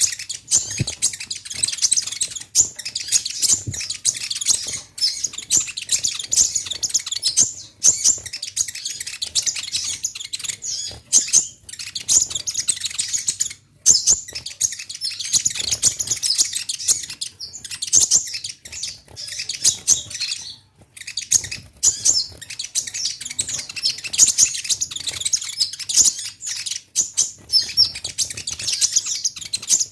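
Kolibri ninja (konin) sunbird singing in a long, rapid run of high, thin chirps and twitters, with only brief pauses.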